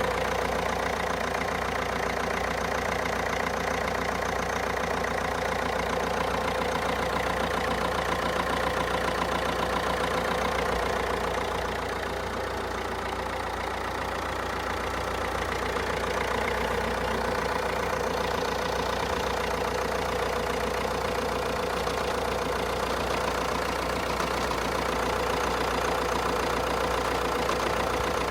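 Fiat Tipo 1.6 MultiJet four-cylinder turbodiesel idling steadily from a cold start. It gets slightly quieter about twelve seconds in and picks up again a few seconds later.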